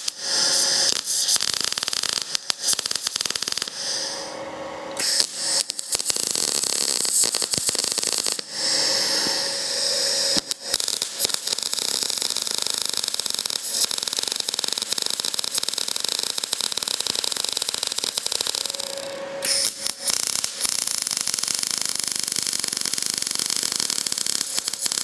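MIG welder arc crackling as a steel oxygen-sensor bung is welded onto an exhaust pipe. Short stop-start tacks come first, then longer continuous runs with a few brief pauses, and a faint steady hum is heard in the pauses.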